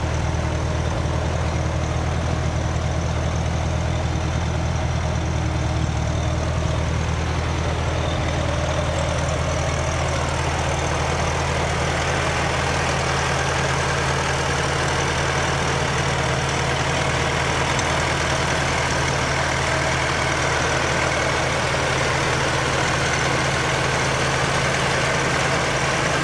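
A fire truck's engine running at a steady speed, driving its water pump, with a steady hiss over it.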